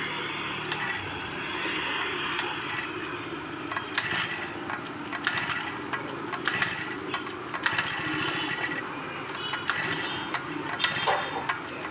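Small four-stroke petrol engine being started without catching: scattered sharp clicks and knocks from the starter and controls over a steady hiss, with no engine running.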